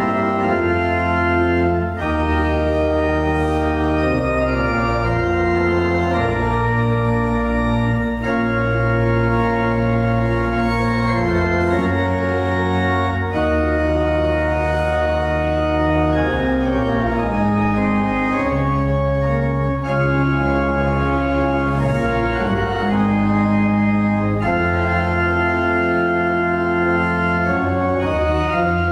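Organ playing sustained chords of a hymn setting, the harmony changing every second or two over a full bass.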